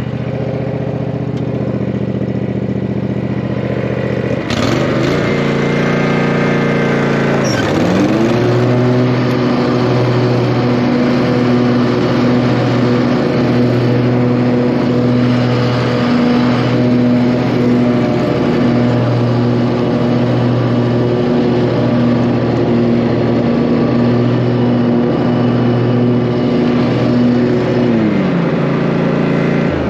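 Dixon zero-turn mower's engine running loud while a newly fitted deck belt is tested. About four seconds in the sound jumps louder and the engine note dips and then climbs back to a steady high speed, as the cutting deck is engaged. The engine holds steady with a slight throb about once a second, and slows near the end.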